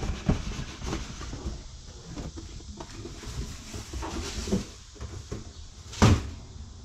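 Cardboard boxes being handled: a boxed RC truck slid out of its corrugated shipping carton, with scraping, rustling and light knocks, then a single sharp thump about six seconds in.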